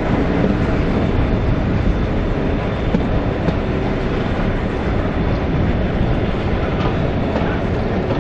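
Passenger train running along the line, heard from a carriage window: a steady, loud rumble of wheels and carriages with a few faint clicks.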